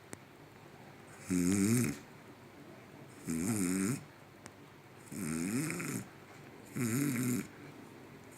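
A man snoring in his sleep: four rough snores about two seconds apart, each under a second long with a wavering pitch.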